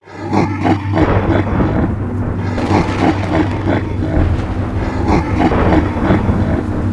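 Cartoon sound effect of a monster truck's engine rumbling with a growl. It sets in abruptly and runs on steadily.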